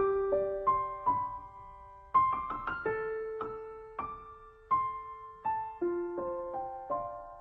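Solo piano playing a slow, gentle passage of single notes and chords, each note struck and left to fade.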